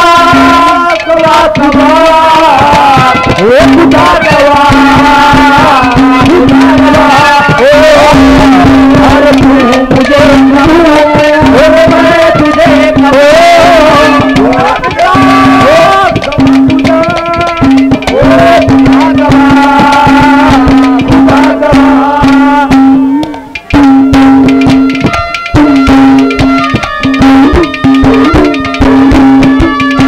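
Haryanvi ragni folk music: a wavering melody over a steady low drone, carried by a fast hand-drum rhythm in tabla style. The music drops briefly about 23 seconds in.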